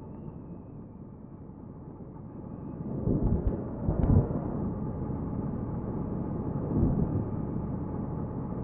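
Motorcycle riding: wind rumbling over the rider's microphone with the engine running underneath, swelling in low gusts about three seconds in and again near seven.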